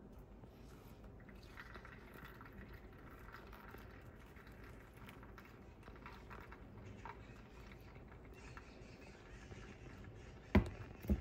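Faint room sound with small scattered clicks, then two sharp knocks about half a second apart near the end.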